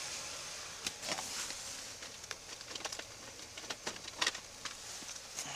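Irregular light clicks, knocks and rustles of a person moving about inside a truck cab, a hand pressing on the textured seat.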